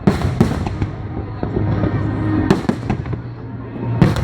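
Fireworks going off: a run of sharp bangs, one at the start, one about half a second in, another about two and a half seconds in and a loud one near the end, over continuous crackling and rumble.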